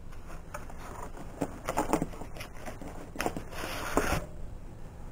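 Items being handled on a table: a few light knocks and clatters, then a rustle lasting under a second, about three and a half seconds in.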